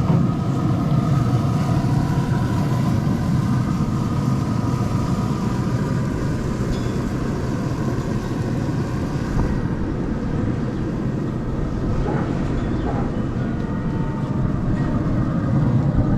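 Steady low mechanical rumble with a faint steady hum above it, like a running motor or vehicle.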